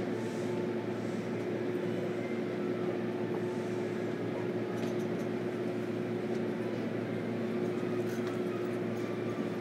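Interior of a JR Kyushu 305 series EMU motor car: a steady hum with one constant mid-pitched tone and a few faint ticks, the level not changing.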